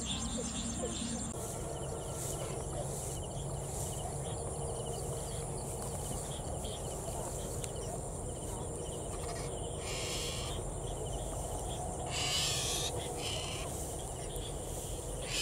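Evening rural field ambience: insects chirping steadily, with a constant high trill and faint repeated chirps. Brief rustles of grass about ten and twelve seconds in, as boots move through the vegetation.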